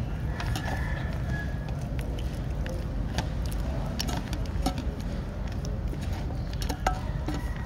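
Steady low background rumble with a few scattered sharp clicks and taps.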